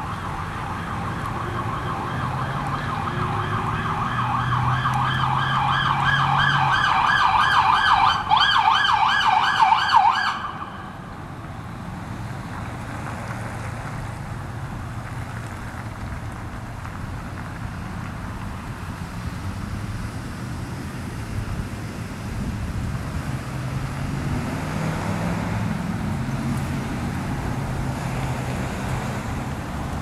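Emergency vehicle siren in a fast warbling yelp, growing louder as it approaches and cutting off abruptly about ten seconds in. After it, engines run and road noise continues, with a vehicle driving past near the end.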